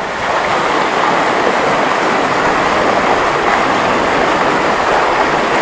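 Water rushing steadily over a small waterfall, a loud, even rush.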